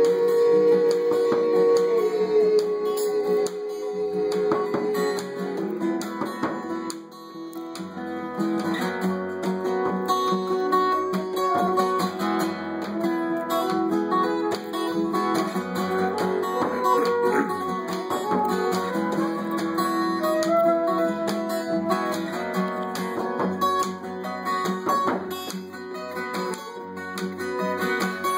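Acoustic guitar strumming with a stick-beaten hand drum and a wind instrument carrying a held melody: an instrumental passage of a folk song, without singing. The music thins briefly about seven seconds in.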